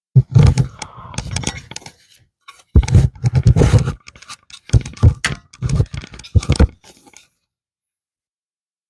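Rough scraping and rubbing as a length of material is pulled by hand through a freshly drilled hole in a wooden piece, in about five bouts, the first two longest, stopping a little after seven seconds in.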